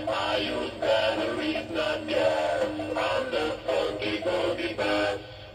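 Animatronic talking bass on a plaque singing its song: a male voice over a backing track, cutting off near the end.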